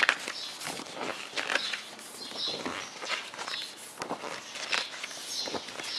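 Pages of a thick-papered hardcover photo book being turned and handled: irregular paper rustles and soft knocks, the loudest right at the start.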